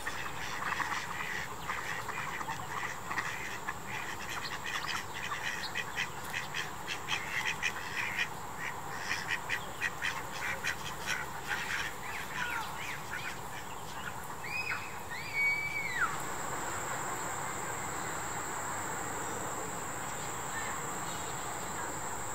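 Mallards and domestic ducks quacking, a quick run of many short quacks, with two brief higher calls near the end of it. About two-thirds of the way through the quacking stops and a steady high-pitched insect trill takes over.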